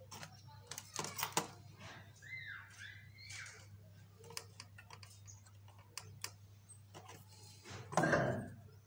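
Small clicks and taps of a white sheet-board model seed drill being handled as clear plastic seed tubes are fitted into it, over a steady low hum. Near the end a louder scraping rustle as the model is tipped up.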